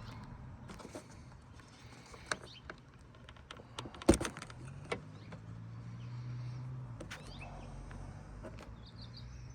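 Scattered clicks and knocks of a camera and its mount being handled and set in place, with one sharp knock about four seconds in. A low steady hum comes in about halfway.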